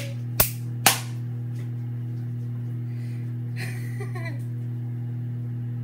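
Two sharp hand claps about half a second apart, over a steady low hum; a short vocal sound, like a laugh, a few seconds later.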